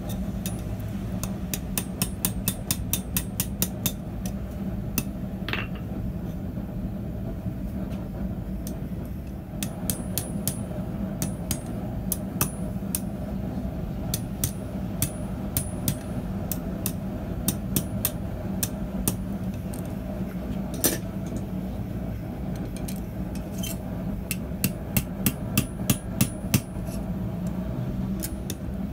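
Hand hammer striking a red-hot coiled mild-steel bar on a steel anvil, in quick runs of several blows a second with pauses between runs. Some blows give a short metallic ring.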